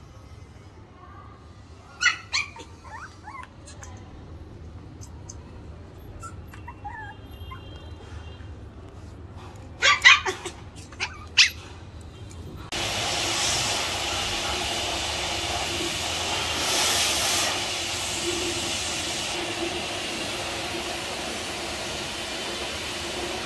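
Toy Pomeranian puppy giving short, sharp barks: one about two seconds in, then a quick cluster of several around ten to eleven seconds. About thirteen seconds in, a steady noisy hiss starts abruptly and runs on.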